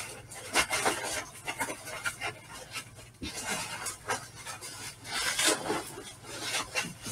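Packing peanuts rustling and scraping in a cardboard box as hands dig through them, in quick irregular bursts. Near the end, bubble wrap rustles as a wrapped package is lifted out.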